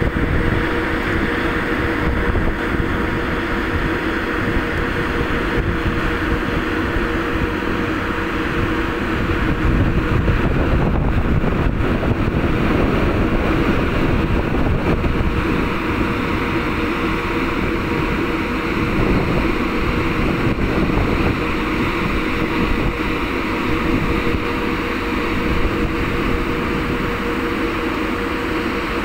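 Steady drone of a ship's engines and deck machinery with a constant hum, mixed with wind buffeting the microphone.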